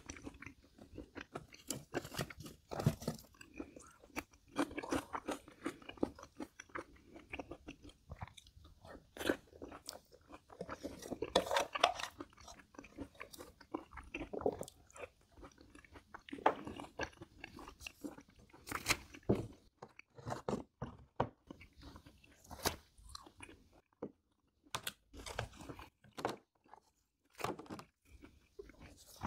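A person chewing and crunching food, with irregular crunches and bites throughout, the loudest about eleven seconds in.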